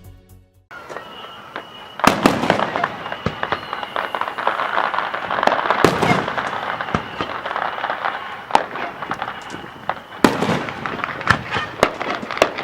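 Aerial fireworks going off in a dense barrage of crackles, pops and sharp bangs, starting loud about two seconds in after a short quiet.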